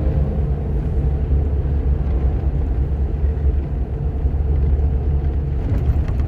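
Bus driving along the road: a steady low rumble of engine and road noise, with a few faint clicks near the end.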